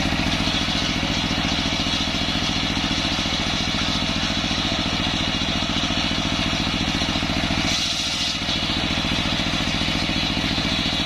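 Diesel engine running steadily under load, driving a large circular saw blade that rips lengthwise through a coconut-palm log, with a hiss from the cut over the engine's even pulse. The sound briefly thins about eight seconds in.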